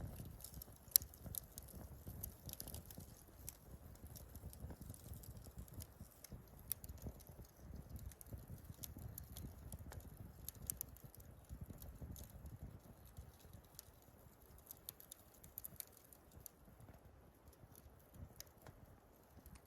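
Wood fire crackling in a Picogrill fire pit, with irregular small pops and snaps over a low rumble.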